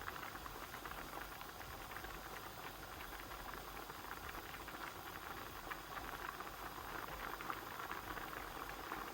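Pot of basmati rice in water at a hard boil, bubbling and crackling steadily.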